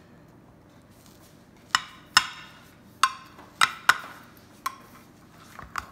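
A utensil clinking against a glass baking dish while a brownie is cut and scooped out: about half a dozen sharp clinks with a short ring, irregularly spaced, starting a couple of seconds in.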